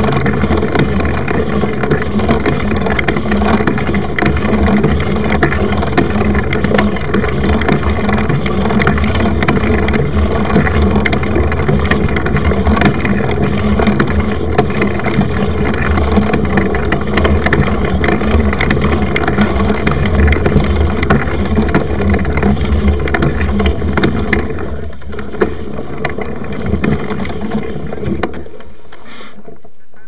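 Loud, steady rumble of wind buffeting the microphone and knobby mountain-bike tyres rolling on a gravel dirt road, with scattered small clicks. It drops off about 25 seconds in as the bike slows.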